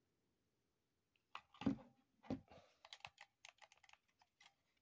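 Handling noise from a plastic pistol-grip RC transmitter: a couple of duller knocks about one and a half to two and a half seconds in, then a quick run of small clicks and taps.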